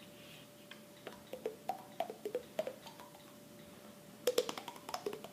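Mouth percussion: a run of hollow, pitched pops and clicks made with the mouth, sounding like a wood block, stepping up and down in pitch. It starts about a second in, pauses briefly, and returns as a louder, quicker flurry near the end.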